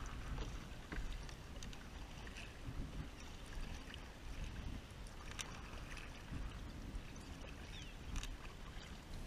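A kayak being paddled over choppy salt water: water splashing and dripping off the paddle, with a few sharp splashes, over a low wind rumble on the microphone.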